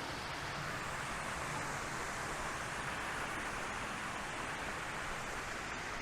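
Steady, even rush of flowing water from the jungle waterfall and its stream.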